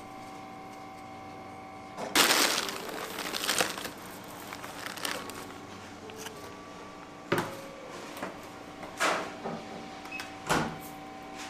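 Kitchen handling sounds over a steady hum of equipment: a loud rustle like a plastic bag being handled about two seconds in, then a few short knocks like a metal scoop against a steel mixing bowl.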